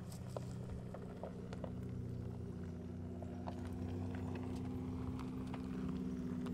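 Electric Mercedes G580 creeping closer on a dirt track: a steady low hum grows slowly louder, with irregular clicks and crunches from gravel and stones under its tyres.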